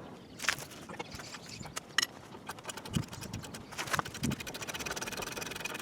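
Hand ratchet wrench working the ball joint nut loose on a 1997 Ford Taurus front suspension: a few separate metal knocks, then from about halfway a fast, even run of ratchet clicks.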